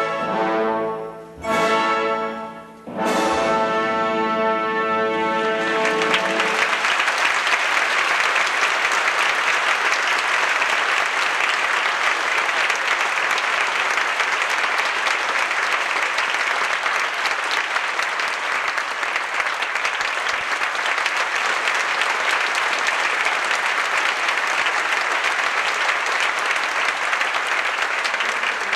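A theatre orchestra plays the closing chords of a ballet number, with the last chord ringing out until about six seconds in. Then an audience applauds steadily and densely for the rest of the time.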